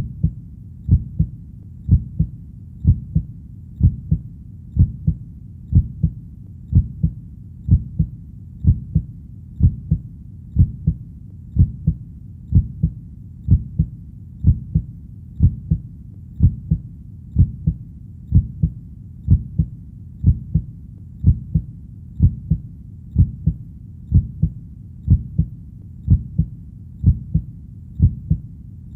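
Heartbeat: a steady, even double thump (lub-dub), low-pitched, about one beat a second.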